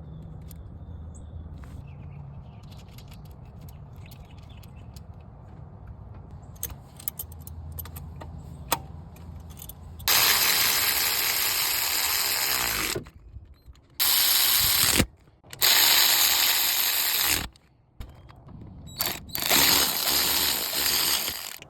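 Handheld power tool, a drill-type motor, running in four bursts of one to three seconds each, starting about halfway through and stopping abruptly between bursts, as it drives fasteners during car repair work.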